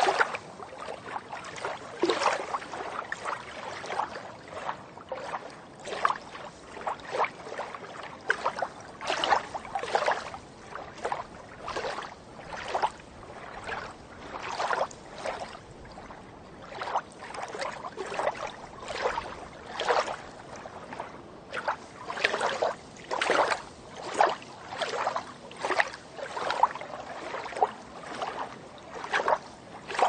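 A swimmer's strokes cutting through water: a steady run of splashes, about one or two a second.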